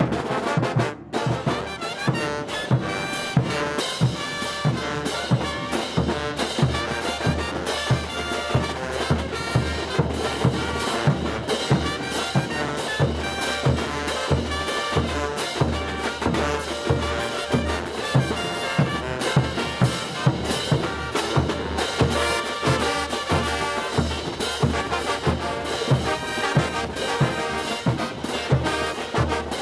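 Bolivian brass band playing: trumpets, trombones and sousaphones over a steady beat of bass drums and crash cymbals. There is a brief dropout about a second in.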